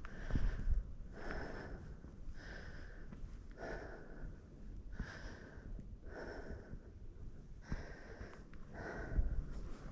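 A person breathing hard and steadily close to the microphone, about one breath a second, with a couple of low thumps near the start and the end.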